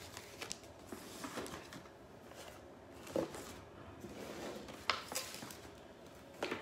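Faint rustling and a few light clicks and knocks as hands move and handle small objects.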